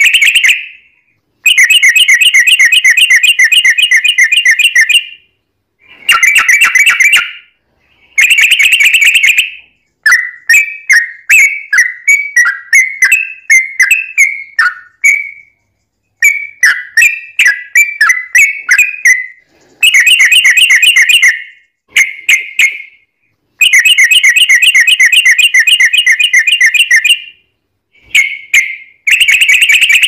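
Yellow-vented bulbul (trucukan) song, played loud: long, rapid rolling trills near 2 kHz, each a few seconds long with short pauses between them, and a stretch of choppier chattering phrases in the middle.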